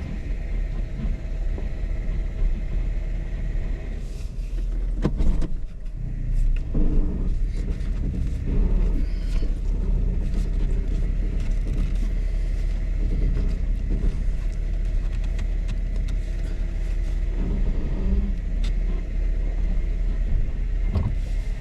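Jeep engine running steadily at low speed as the vehicle crawls through a rocky hairpin, with a few short knocks along the way.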